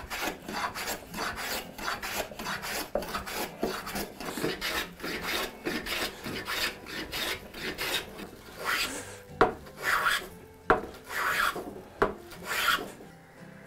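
Hand plane shaving a small walnut block, stroke after stroke at about two or three a second. Later the strokes come fewer and longer, with two sharp knocks in between.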